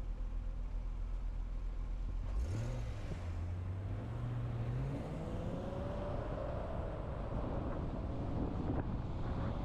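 Car engine idling low, then pulling away about two seconds in, its note rising steadily as it accelerates, with road and wind noise building.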